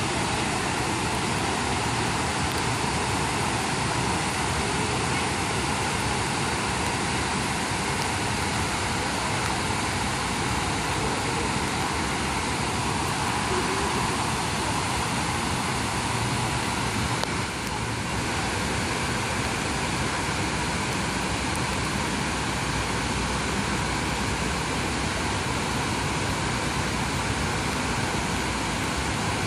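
Steady rushing of water pouring down a large stepped fountain cascade, an even noise with no breaks.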